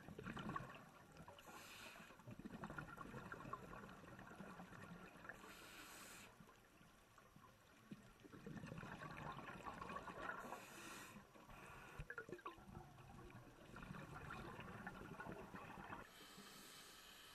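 Faint underwater ambience: low bubbling and rushing water that swells and fades every few seconds, with short hissing surges.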